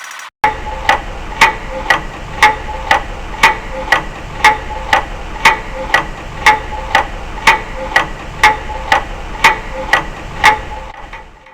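Loud tick-tack clock sound effect counting down a ten-second timer: sharp ticks, about two a second, over a low steady hum. The ticks stop about ten and a half seconds in.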